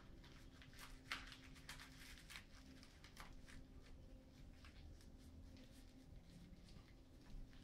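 Faint rustling and creaking of a bamboo sushi mat being squeezed and rolled around a sushi roll, in scattered small rustles over a faint steady hum.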